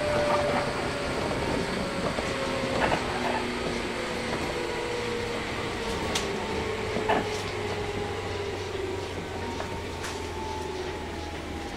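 Running sound of a 115 series 1000-subseries electric train with MT54 traction motors. The motor and gear whine falls slowly in pitch over a steady rumble, and a few sharp knocks come in between.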